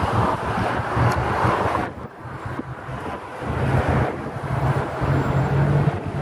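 Wind buffeting the microphone outdoors in uneven gusts, dropping off briefly about two seconds in, over a low steady hum.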